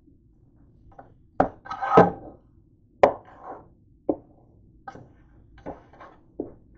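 A spatula knocking and scraping against a nonstick frying pan while fried onions are scooped out of it: a string of irregular knocks and clatters, the loudest about two seconds in.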